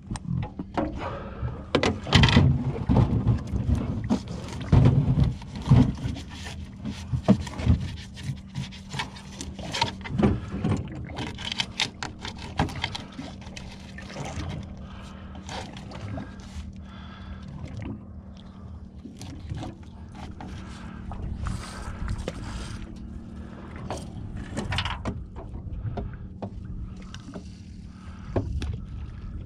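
Knocks, clicks and scrapes of gear being handled in a small fishing boat, including bait being cut on a plastic cutting board, over a steady low hum.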